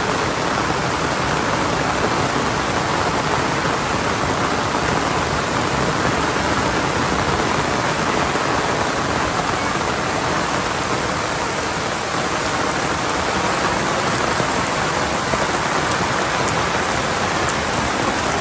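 Heavy monsoon rain falling steadily on leaves, grass and a wet road.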